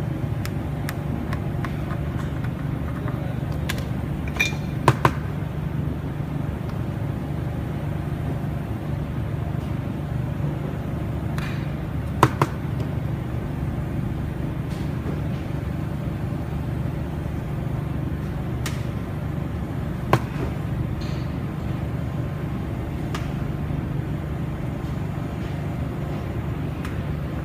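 A steady low workshop hum, with a handful of sharp clicks and taps of small hand tools against an LED display module, a couple of them in quick pairs.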